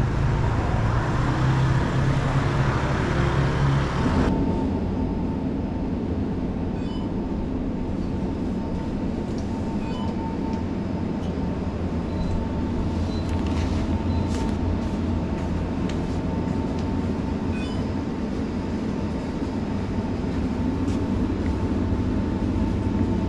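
Steady low rumble of a vehicle in motion. About four seconds in it changes abruptly to a duller, quieter rumble with a faint steady hum.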